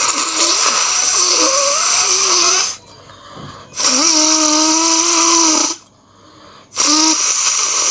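A woman blowing her nose hard three times, each blow about two seconds of rushing air with a steady nasal tone.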